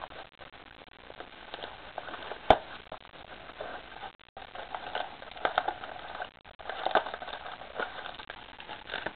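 Rustling and crinkling of a Yu-Gi-Oh! Premium Gold mini-box's packaging being handled and opened by hand, with irregular crackles and one sharp click about two and a half seconds in, the loudest sound.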